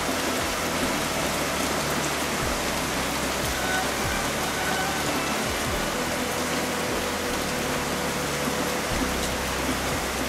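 Heavy rain pouring down in a steady, dense hiss of falling drops.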